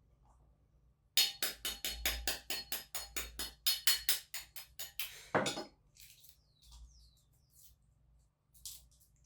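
A kitchen utensil tapping rapidly and evenly against a dish while eggs are prepared, about five strokes a second with a light ring, for about four seconds. It ends with one heavier knock, then only faint small handling sounds.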